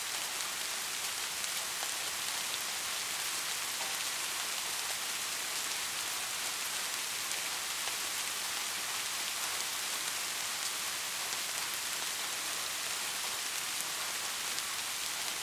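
Steady rain falling on a surface, a constant hiss with fine scattered drop ticks and no thunder.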